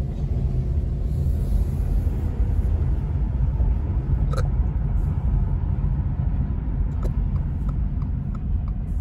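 Car driving slowly, heard from inside the cabin: a steady low rumble of engine and tyres. From about seven seconds in, the turn signal ticks evenly, a little over two clicks a second.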